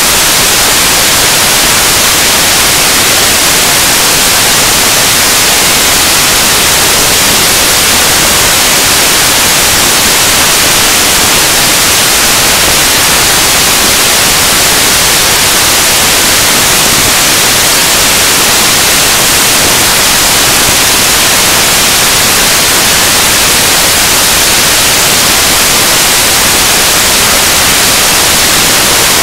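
Loud, steady static hiss like white noise, strongest in the high end and unchanging throughout. It buries the soundtrack, so none of the speech seen in the picture comes through.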